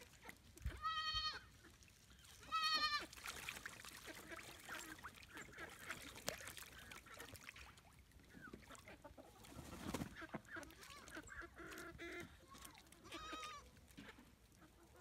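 Three short, high-pitched, wavering calls from farm animals: one about a second in, one near three seconds, one near the end.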